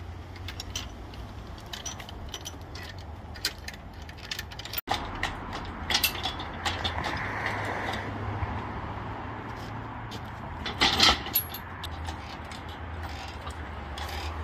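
Engine hoist and its lifting chain clinking and rattling as an engine on a stand is hoisted, with scattered metal clicks and a louder burst of chain rattle about eleven seconds in.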